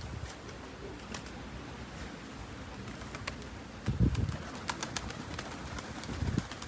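Strong blizzard wind buffeting the microphone, with low rumbling gusts about four seconds in and again near the end, and scattered small clicks.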